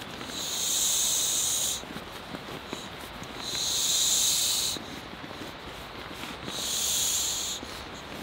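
Air hissing out through the valve of inflatable camping gear as it is pressed flat by hand: three long hisses, each about a second and a half, with short pauses between presses.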